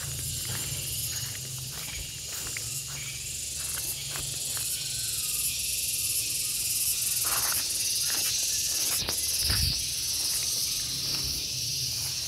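Garengpung cicada calling: a steady, shrill, high-pitched buzz that grows louder partway through.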